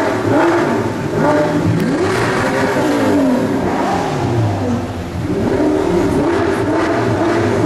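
Supercar engine revving: the pitch climbs and falls several times, then settles to a steadier note for the last couple of seconds.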